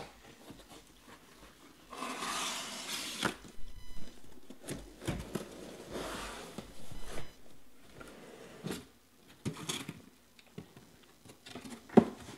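Cardboard shipping case being opened and unpacked by hand: cardboard flaps rub and scrape in two longer stretches, about two and five seconds in, among scattered taps and knocks. A sharp thump near the end as a box is set down on the table.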